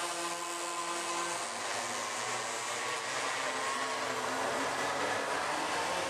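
Several minimoto pocket bikes' small two-stroke engines buzzing at high revs around the track, their pitches shifting as the riders work the throttle.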